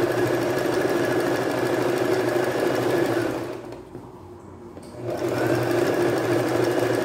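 Singer domestic sewing machine running steadily as it sews a zigzag stitch along a fabric edge. It stops about three seconds in, pauses for about a second and a half, then starts up again and runs on.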